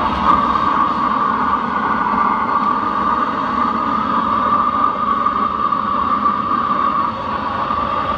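Drum furnace's burner running with a steady, loud rushing roar while bronze and brass melt in the crucible.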